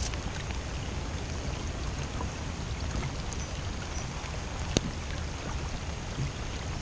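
Steady wash of wind and water noise on open water, with a low rumble underneath and one sharp click about five seconds in.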